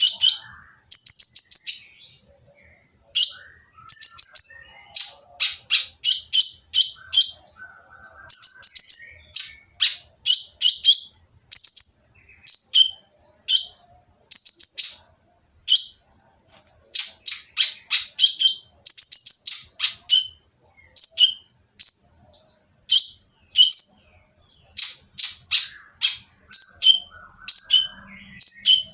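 Kolibri ninja sunbird calling harshly: a long run of sharp, high chirps in quick bursts separated by short pauses.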